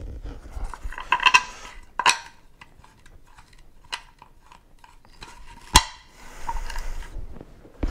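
Small screws, bolts and knobs clicking and clinking as they are taken out of a black plastic downrigger mount plate and handled, with the plastic rattling between the clicks. The sharpest click comes just before six seconds in.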